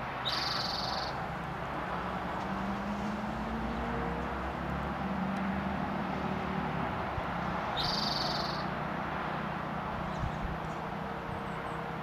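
Spotted towhee singing: two short high-pitched songs, each under a second, about seven and a half seconds apart, over a steady low rumble.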